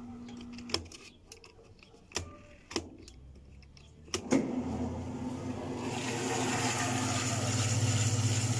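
A few clicks of the Maytag top-load washer's control dial being turned. About four seconds in, the motor starts with a steady hum, and from about six seconds a louder whir builds as the washer goes into its spin cycle. Its transmission has just been repaired.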